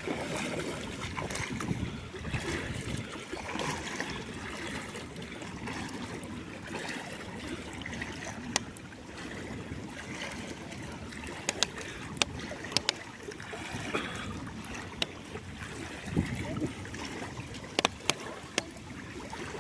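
Heavy rain falling in a storm, a steady wash of noise with scattered sharp ticks.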